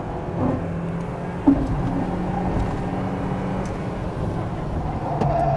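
Mazda MX-5's four-cylinder engine running steadily under load at track speed, heard from the open cockpit with wind noise. A short knock comes about a second and a half in, and a higher steady tone joins near the end.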